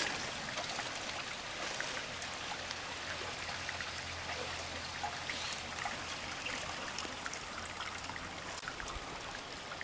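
Small creek trickling and flowing steadily.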